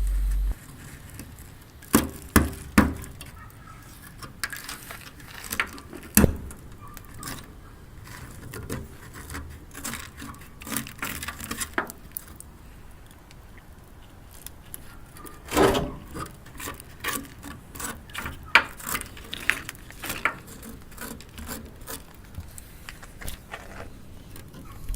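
Irregular metal-on-metal knocks, clinks and taps of a hammer and tool breaking free the rusted-solid steel lock ring that holds the pump in a fuel tank. Three sharp strikes come about two seconds in and another strong one near sixteen seconds, with lighter taps and scrapes between.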